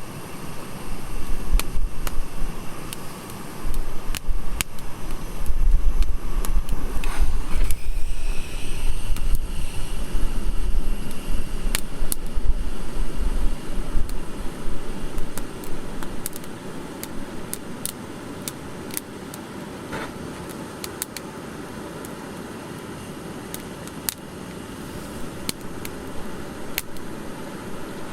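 Wood campfire crackling and popping with irregular sharp snaps, over a heavy low rumble through the first half that dies down after about sixteen seconds. A brief hiss rises about seven seconds in.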